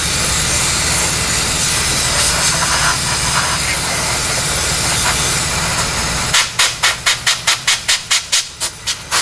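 Compressed-air blow gun clearing metal chips out of a freshly drilled and tapped bolt hole in the intake manifold: a steady hiss for about six seconds, then a quick run of short blasts, about four a second.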